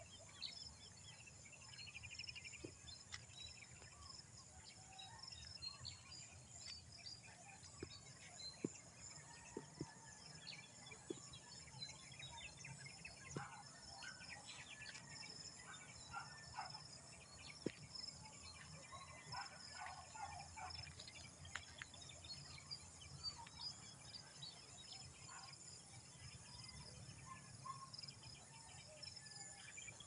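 Faint field ambience: scattered bird chirps over a steady, high-pitched insect drone, with a few short clicks.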